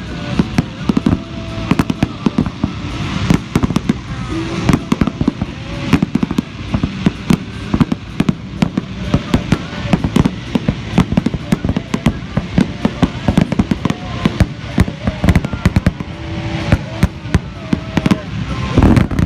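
Fireworks bursting in rapid succession, several sharp bangs a second without a break.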